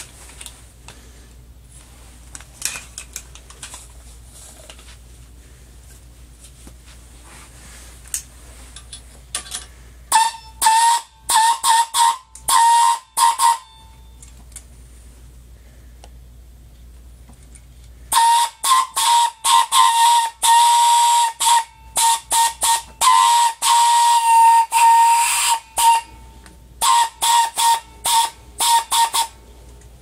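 Small compressed-air horn sounding a single high tone in short, broken blasts. There is a stuttering group of toots about a third of the way in, a longer run of blasts in the middle, and a last flurry near the end, with a faint low hum between them.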